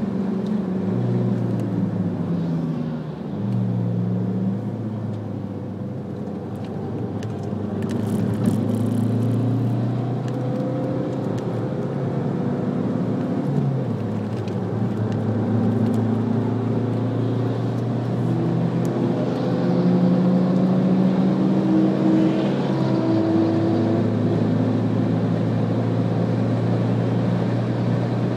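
Alfa Romeo MiTo engine and road noise heard from inside the cabin at track speed. The engine note runs continuously, its pitch stepping down and back up a few times.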